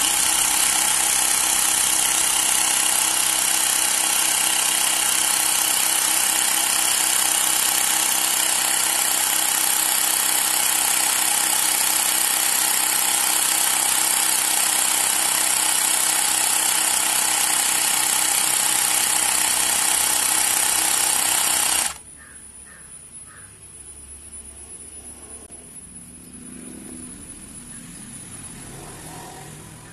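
Xiaomi Mi Portable Electric Air Compressor running steadily as it inflates a motorcycle tyre, then cutting off abruptly about three quarters of the way through. Quieter handling noises follow as the hose is unscrewed from the tyre valve.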